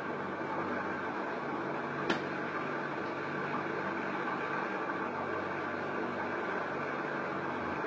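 Steady whir and hum of a running electric fan, with one sharp click about two seconds in.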